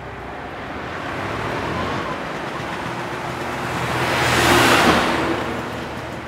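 Road traffic: a vehicle engine running under a rush of road noise that swells to a peak about four and a half seconds in and then fades, as a vehicle passes close by.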